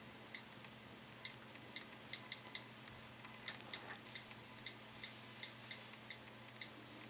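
First-generation iPad's on-screen keyboard clicking faintly, a short high tick for each key tapped, in irregular runs of quick taps while a web address is typed.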